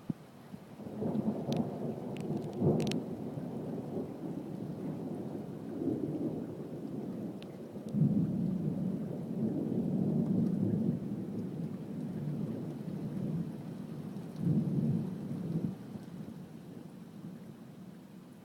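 Thunder rumbling in several long swells, with a couple of sharp cracks about a second and a half and three seconds in, dying away near the end. Rain falls underneath.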